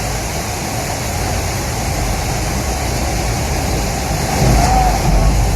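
Steady rushing noise with a low rumble underneath, getting a little louder near the end.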